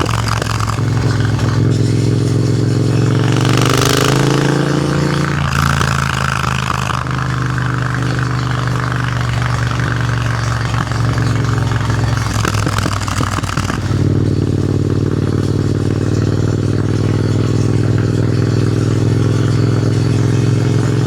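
Triumph Thruxton RS 1200's parallel-twin engine running through a Hitchcox custom exhaust while riding. The pitch rises as it revs about three to five seconds in, drops back, then holds a steady cruise through the second half.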